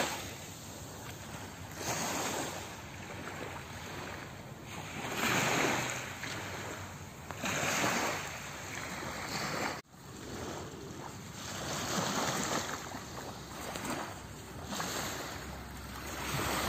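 Small waves washing in on a sandy shore, the surf swelling and fading every two to three seconds, with a brief drop-out about ten seconds in.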